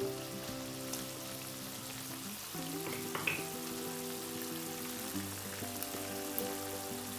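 Chicken strips frying in soy sauce in a stone-coated wok, with a steady sizzle. A wooden spatula stirs them and gives a few light taps. Soft background music with sustained chords plays under the sizzle.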